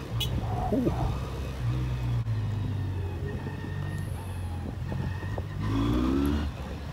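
Jonway YY350-9a motorcycle's engine running at low speed, a steady low hum, as the bike rolls slowly in traffic.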